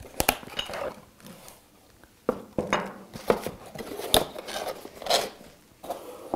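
A cardboard box being opened and handled, with a series of sharp clicks and knocks as machined metal 90-degree brackets are taken out and set down on a tabletop, and scraping and rustling in between.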